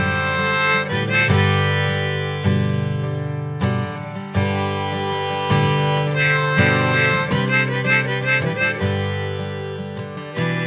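Background music: a blues-style harmonica playing a melody over acoustic guitar.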